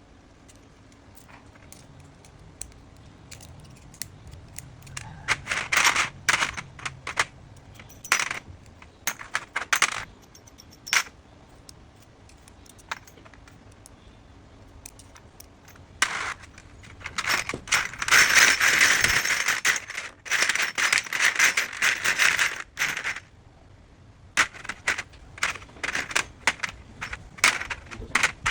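Computer parts being handled and fitted together: scattered sharp clicks and taps of plastic and metal, with short bursts of rattling and a longer dense stretch of rattling about two thirds of the way through.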